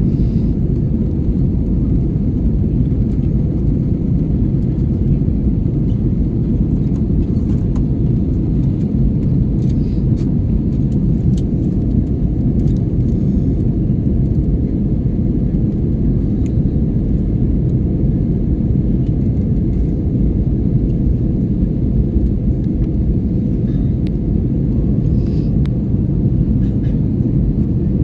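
Airliner cabin noise in flight: the steady low rumble of the jet engines and airflow heard from inside the cabin, with a faint steady hum above it.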